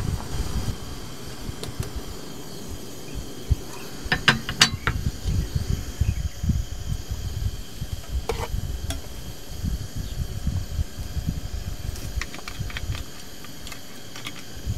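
Camp cookware and utensils clinking: a cluster of sharp clinks about four seconds in, one near eight and a half seconds, and several more near the end, over a steady low rumble.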